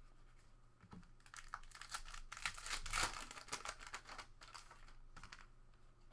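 Plastic wrapper of a trading-card pack crinkling and tearing as the pack is torn open and handled. A dense run of sharp crackles starts about a second in, is loudest midway and dies away near the end.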